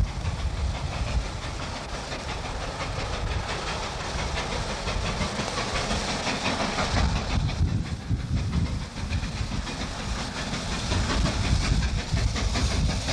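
Baldwin steam locomotive working hard as it approaches: exhaust chuffing and steam hiss over a heavy low rumble, growing a little louder near the end.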